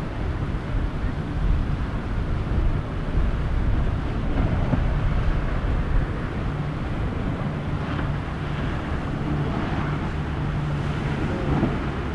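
Wind on the microphone over rough inlet water, with a boat engine's steady drone coming in during the second half.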